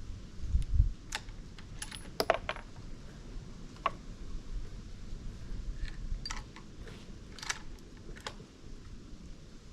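Light metallic clicks and clinks, scattered irregularly, with a couple of low thumps about half a second in.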